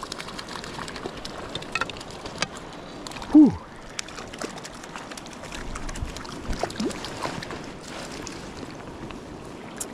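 Shallow mountain creek running steadily over rocks, with scattered faint clicks and a short low vocal sound a little over three seconds in.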